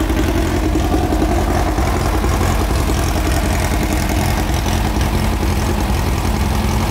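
1600cc VW flat-four boxer engine idling steadily.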